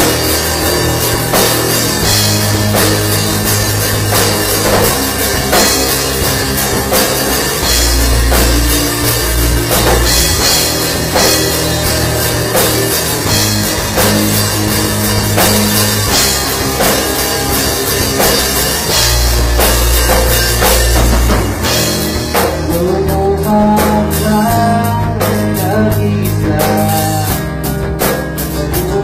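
Rock music with a drum kit and a heavy bass line playing loudly. About 22 seconds in the drums drop back to a lighter, even beat and a higher melody comes in.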